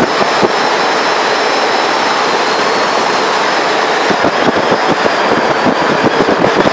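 Loud rushing wind buffeting the microphone of a mountain bike descending a paved road at about 60 km/h, with a faint high whistle that fades out about four seconds in.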